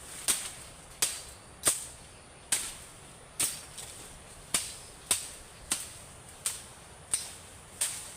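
A series of sharp cracks or knocks, about eleven of them at a slightly uneven pace of roughly one every three-quarters of a second, each dying away quickly.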